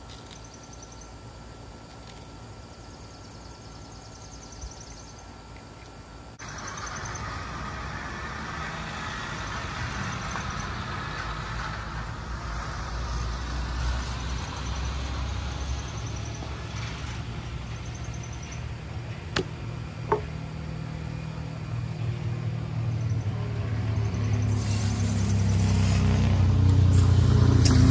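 Low, steady outdoor background with a faint hum; about six seconds in a louder rushing noise comes in and keeps building, and near the end a garden hose sprays water, the loudest sound, with a couple of brief clicks in between.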